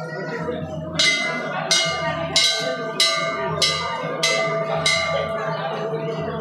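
Hanging brass temple bell struck again and again, about seven strikes in steady succession starting about a second in, roughly one and a half a second. Each strike rings on into the next.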